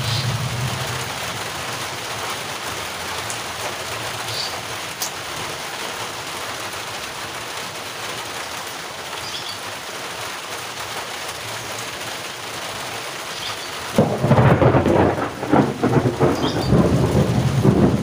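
Steady rain falling, then about fourteen seconds in a sudden loud crash of thunder that rumbles on to the end.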